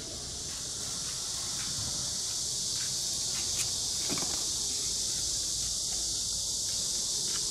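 A steady, shrill chorus of summer insects that grows a little louder as it goes on, with a few faint clicks.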